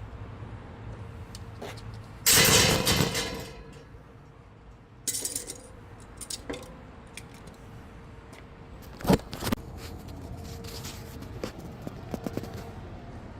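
Metal jangling and rattling, loudest in a burst a couple of seconds in and again briefly about five seconds in, then two sharp clicks or knocks about nine seconds in.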